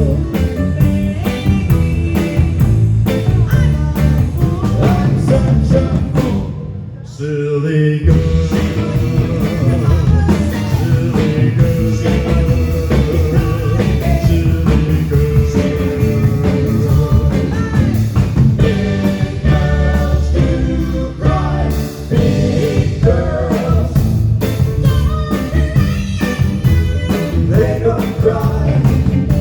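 A rock band with electric guitar plays a bluesy rock song at full volume. About seven seconds in it drops out almost completely for around a second, then kicks back in.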